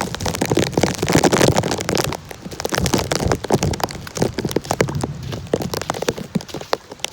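Heavy rain, a dense irregular patter of drops striking a hard surface, louder for the first couple of seconds and then easing a little.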